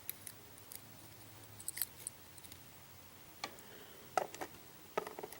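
Faint, scattered small metallic clicks and taps of tweezers picking pins and springs out of a Schlage lock cylinder, with a few clicks near two seconds in and a quick run of them toward the end.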